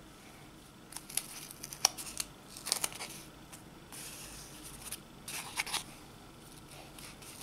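Thread being pulled out of and pressed into the slits of a cardboard kumihimo disc, with fingers rubbing and turning the cardboard: faint, irregular scratchy rasps and light ticks.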